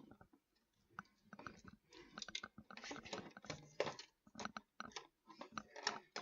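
Handling noise from computer parts being worked by hand: irregular small clicks, taps and scrapes of plastic and metal, sparse at first and then coming thick and fast from about two seconds in.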